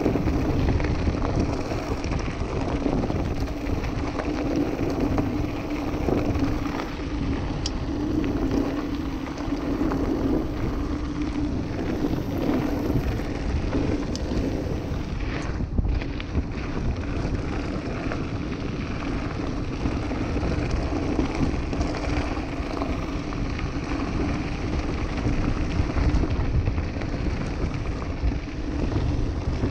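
Mountain bike rolling along a gravel track: knobby tyres on loose stones with a steady hum, small knocks from the bike, and wind rushing over the microphone.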